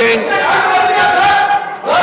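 Many men's voices shouting together in a sustained chant, the sound of members chanting slogans in a legislative chamber. It breaks off briefly near the end.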